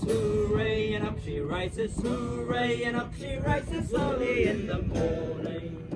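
A man singing a song with guitar accompaniment, holding long notes.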